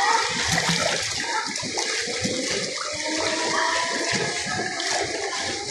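Swimming-pool water sloshing and splashing close by as swimmers move through it.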